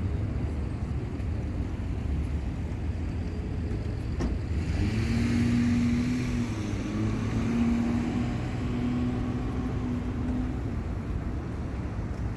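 A car driving past, its engine hum and tyre noise swelling about four seconds in and dying away near the end, over a steady low outdoor rumble.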